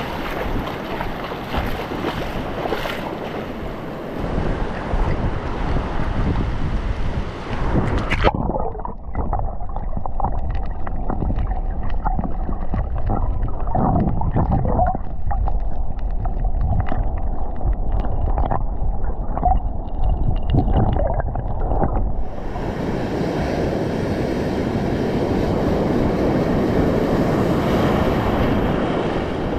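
Shallow reef surf washing and wind buffeting the microphone. About eight seconds in, the sound suddenly goes muffled as it is heard from underwater, with bubbling and small clicks. About 22 seconds in, the full hiss of the surf comes back.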